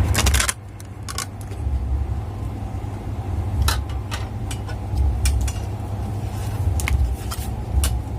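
Scattered light clicks and taps from handling a thermostat and multimeter, over a steady low rumble.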